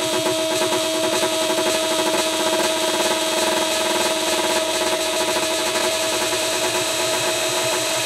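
Minimal techno track: a held synth tone over a fast, noisy, gritty rhythmic pattern.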